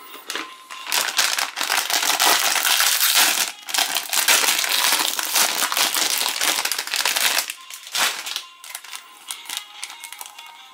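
A foil-lined plastic croissant wrapper being crinkled and pulled open by hand, with loud, dense crinkling. Near the end it gives way to lighter crackles from handling a cap in its clear plastic sleeve.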